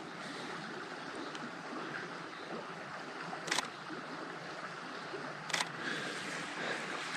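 Canon EOS R5 shutter firing twice, two sharp clicks about two seconds apart, over a steady rushing hiss of outdoor ambience.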